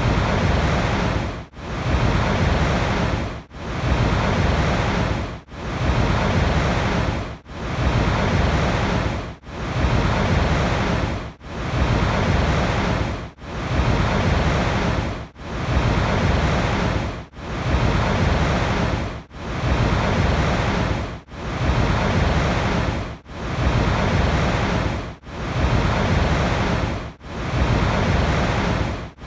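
Steady rushing water noise, full and deep, cut by a brief dip about every two seconds, as a short recording looped over and over.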